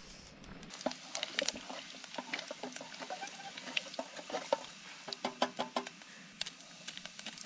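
Frying in a pan for the dal's tempering: a steady sizzle with many small crackles and pops scattered throughout.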